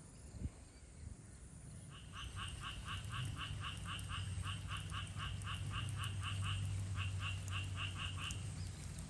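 A frog calling in a rapid, evenly spaced series of short notes, about four a second. The calls start about two seconds in, pause briefly, then stop shortly before the end. A steady low hum runs underneath.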